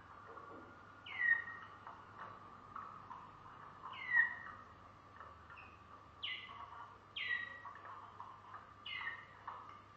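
Malinois Waterslager canary singing: a continuous low warbling song, with a sharp note sweeping down in pitch about six times, scattered unevenly through the song.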